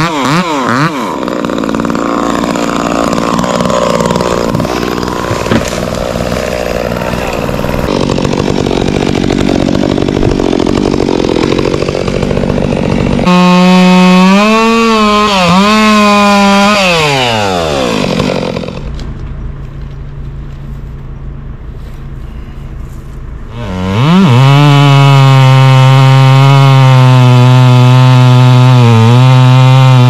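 Gas chainsaw cutting up felled oak limbs, revving and bogging as it cuts. About two thirds of the way through, its pitch sinks away and it runs quieter for a few seconds. Then it comes back up to a loud, steady run.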